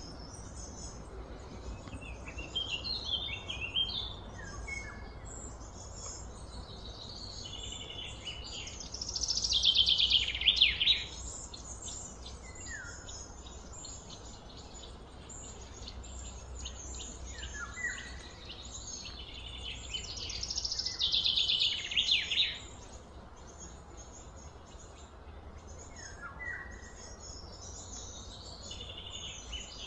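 Outdoor ambience with a steady low hum, broken by bursts of rapid high-pitched chirping calls and short falling notes. The loudest bursts come about ten seconds in and again about twenty-one seconds in.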